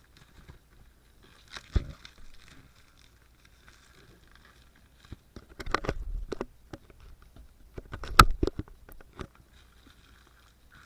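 Packaging being opened and unwrapped by hand: rustling, crinkling and scraping, with a few sharp knocks, the loudest about eight seconds in.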